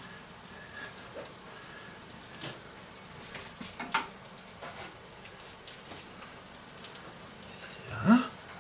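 Fat crackling and sizzling in a hot pan, with a sharp clink about four seconds in. Near the end comes a short, louder sound that rises steeply in pitch.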